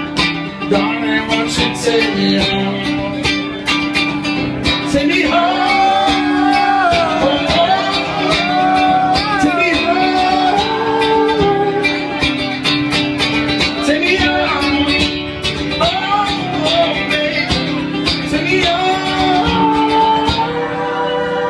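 Live music: a nylon-string acoustic guitar played rhythmically, with a man singing over it from about five seconds in.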